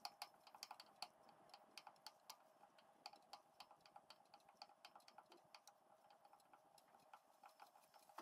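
Milling machine spindle running with a 3 mm carbide end mill cutting a hole into a metal part: a faint steady whine with quiet, irregular ticking several times a second.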